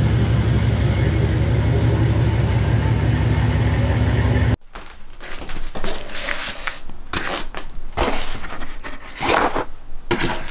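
A GMC pickup's 5.3 LS V8 idling steadily, cut off suddenly about four and a half seconds in; then paper-backed vinyl stickers crinkling and rustling as they are handled on a desk.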